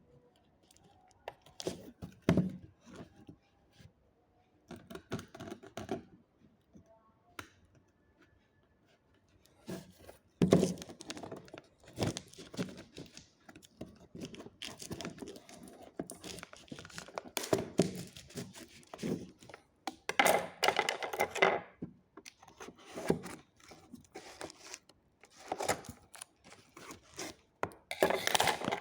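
Packaging of a Hot Wheels track set being opened by hand: cardboard and plastic tearing and crinkling in irregular bursts, with occasional dull thunks of handling.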